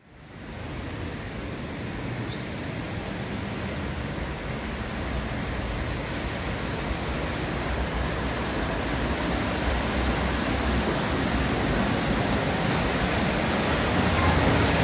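Steady rushing noise, fading in from silence at the start and slowly growing louder.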